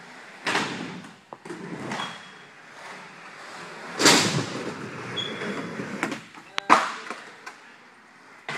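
Skateboard on a concrete floor: wheels rolling with a series of sharp knocks and slaps as the board hits the ground, about six in all, the loudest about four seconds in.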